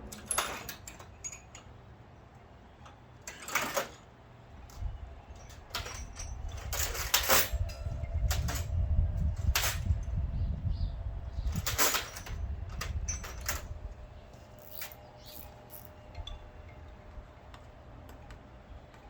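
Scattered metallic clinks and knocks of hand tools and parts being handled during work on a car, with a low rumble through the middle stretch.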